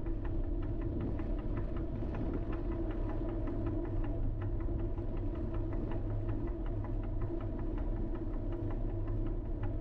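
Vehicle driving: a steady low engine and road hum, with a light, regular ticking about three times a second.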